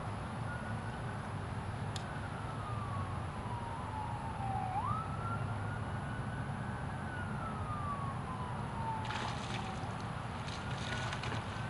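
An emergency vehicle's siren wailing, its pitch sliding slowly up and down several times with one quick rise about halfway through, over a steady low rumble. A few short clicks near the end.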